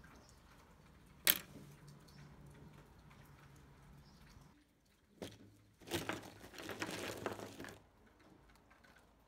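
A paintbrush set down with a sharp click on a wooden table about a second in. Later, a pouch of small watercolour paint tubes is tipped out, and the tubes clatter and rattle onto the table for a couple of seconds.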